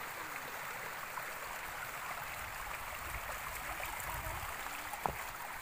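Stream water rushing steadily, with one brief knock about five seconds in.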